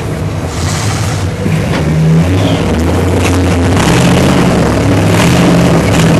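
Lifted off-road truck's engine running at low revs as it crawls over rocks, growing louder about two seconds in as it takes more throttle.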